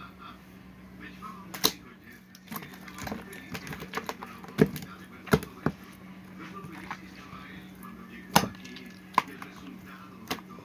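Slime being squeezed and stretched by hand, giving a series of sharp pops and clicks at irregular intervals, over a steady low hum.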